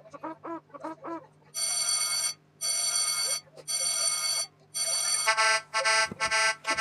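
A quick run of short pitched chirps, then an electronic alarm beeping: four long beeps, then faster, shorter beeps.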